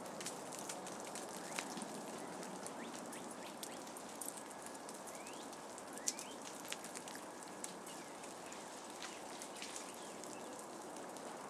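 Ice-coated trees thawing: a steady rain-like patter of meltwater dripping and bits of ice falling, with scattered sharp ticks.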